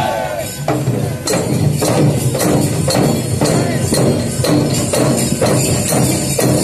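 A folk troupe's barrel drums beaten with sticks in a steady, loud rhythm, strong strokes about twice a second over continuous drumming.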